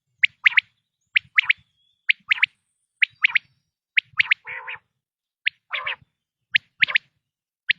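Male common quail (batair) calling: its sharp three-note 'wet-my-lips' phrase repeated about once a second, with a couple of rougher, lower notes partway through.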